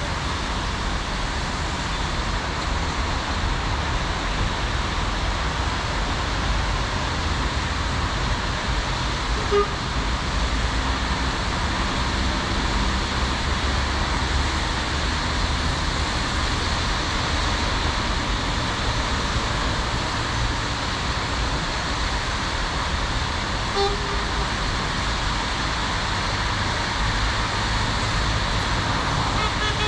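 Steady road traffic noise from cars and lorries on a multi-lane boulevard: a continuous even hum and hiss of passing vehicles.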